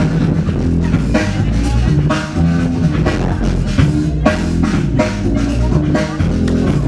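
Loud music with a heavy drum-kit beat and strong bass.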